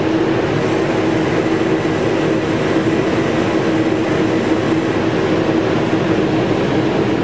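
Steady mechanical hum with a constant low tone over an even hiss.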